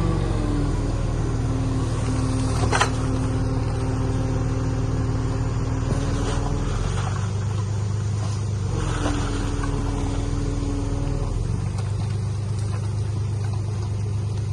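Heavy diesel engine of earthmoving machinery running steadily under varying load, with a single sharp knock about three seconds in.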